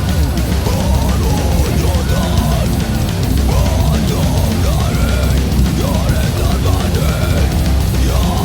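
Loud heavy-metal music with distorted electric guitar, its lead line bending up and down in pitch over a dense, steady low end.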